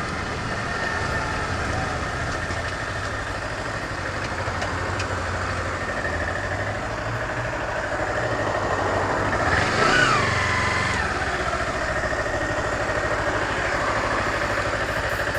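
Kawasaki Ninja 250 motorcycle engine running steadily, with a louder swell about ten seconds in whose pitch rises and then falls.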